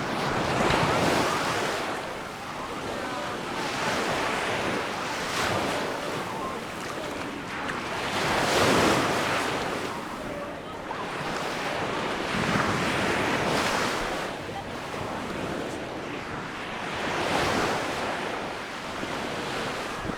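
Sea waves breaking and washing onto the beach, the surf swelling and fading every few seconds.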